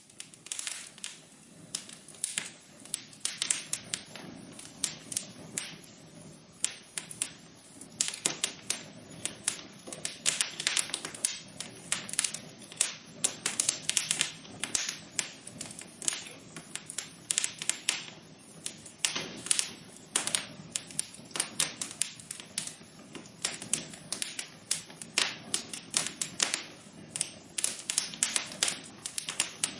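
Wood fire crackling in a fireplace: many irregular sharp pops and snaps over a soft hiss.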